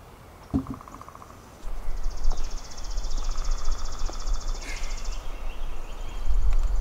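Wind buffeting the microphone, a low rumble that starts about a second and a half in and is the loudest sound, with birdsong: a bird's fast, evenly pulsed high trill lasting about three seconds and other calls. A single thump sounds about half a second in.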